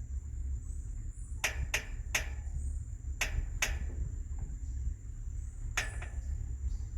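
Rainforest ambience: a steady high-pitched insect drone over a low wind rumble, broken by about six sharp clicks spread through it.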